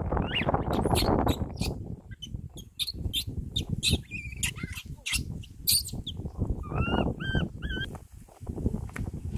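Baby crab-eating macaque giving short, high, arched cries: one near the start and a quick run of four about seven seconds in. Scattered clicks and a low rumble run between the cries.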